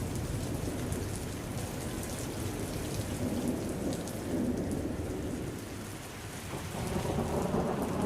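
Hard rain pouring with thunder rumbling underneath. The rumble eases about six seconds in, then swells up again near the end.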